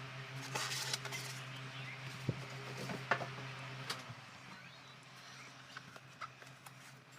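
Handling noises of a toy pistol's plastic packaging: rustling and scattered sharp clicks, over a steady low hum.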